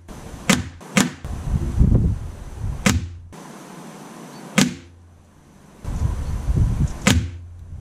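Five sharp cracks of air-rifle pellets striking a paper target on a wooden board, irregularly spaced, the closest two about half a second apart. Between them is a low rumble of wind buffeting the microphone.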